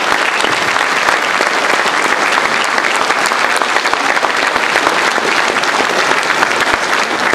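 A large audience applauding steadily: the dense clapping of many hands, kept up without a break.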